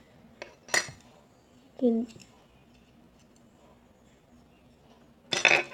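Handling noises of a tub of slime being opened and poked: a light click and a brief crackle under a second in, and a louder squelchy rustle near the end. A short murmur of a voice falls in pitch about two seconds in.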